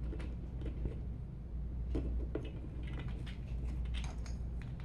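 Light, irregular clicks and taps of 3D-printed plastic parts as a wheel is handled and pushed onto the toy car's rear axle, over a steady low hum.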